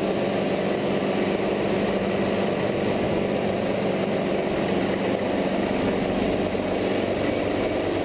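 Hughes 269B helicopter's piston engine and rotor running steadily, an even mechanical noise with no change in pitch.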